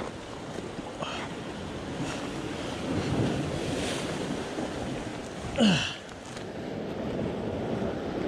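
Ocean surf surging and washing against the rocks below, with wind on the microphone. A little past halfway, a short loud vocal cry falls steeply in pitch.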